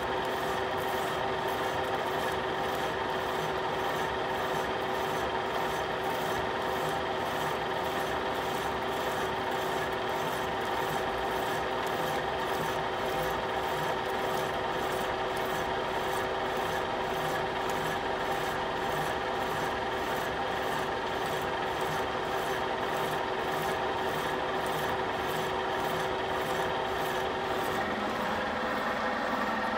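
Radial drill spindle running with a 2-inch Criterion-style boring head and high-speed-steel single-point bit boring through a metal hole: a steady gear hum with a rhythmic scraping cut repeating about three times every two seconds. Near the end the hum changes pitch.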